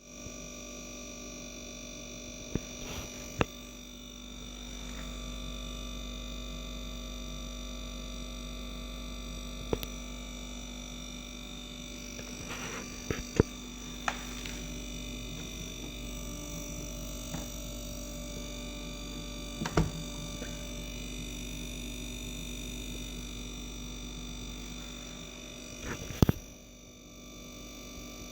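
Samsung dishwasher buzzing steadily during its sanitize cycle, a constant electrical-sounding hum with several steady tones, broken by a few sharp clicks or knocks, the loudest near the end.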